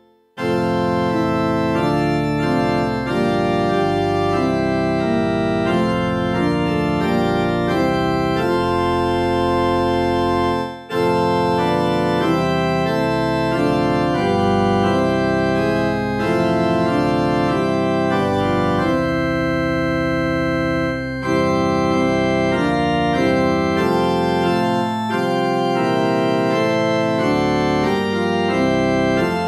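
Background organ music: held, sustained chords over a low bass line. The piece begins just after the start, with a brief break about eleven seconds in.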